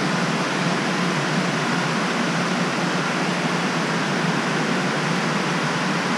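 Steady rushing of water flowing into a fish-hatchery fry trough, an even hiss with no breaks.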